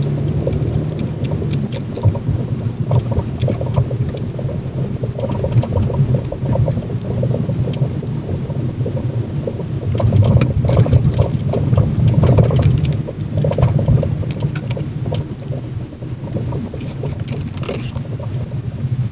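Car being driven over the road with a steady rumble, and frequent small knocks and a fine rattle from a strut top mount built on Soviet split ШС20 spherical plain bearings. The mount has no vibration isolation and is bolted straight to the strut tower of an air suspension. The knocking is busiest and loudest around the middle.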